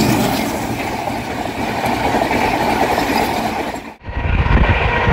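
WDM-3D ALCo diesel locomotive and its train rushing past at speed. About four seconds in the sound drops out briefly and gives way to the low rumble and wheel clatter of a train heard from on board.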